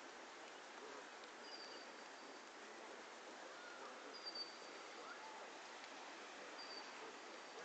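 Faint outdoor ambience: a steady hiss with three short, thin, high-pitched bird calls a couple of seconds apart.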